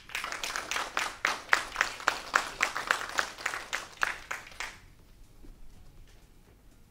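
Small audience applauding, with a few loud individual claps standing out at about four a second; the applause dies away after about four and a half seconds.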